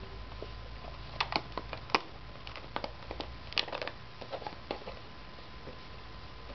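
Basset hound licking and mouthing at a thin plastic yoghurt cup, the plastic giving irregular crackles and clicks that come in clusters and die away near the end.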